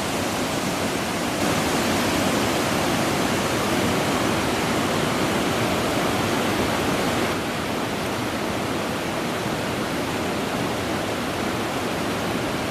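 River waterfall: water rushing steadily over rocks. It grows slightly louder about a second and a half in and eases a little after about seven seconds.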